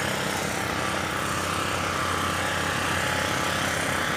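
Steady outdoor rumble of road traffic and engines, an even noise with a low hum underneath and no single event standing out.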